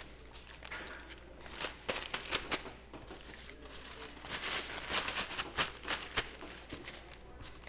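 Paper towels rustling and crinkling as they are handled, with scattered light clicks and taps.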